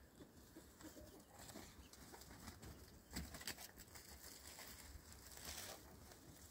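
Near silence, with a few faint, brief rustles.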